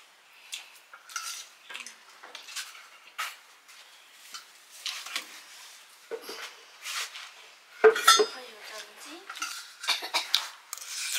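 Metal cutlery and metal dishes clinking and scraping in a run of irregular knocks. The loudest knock, with a brief ring, comes about eight seconds in.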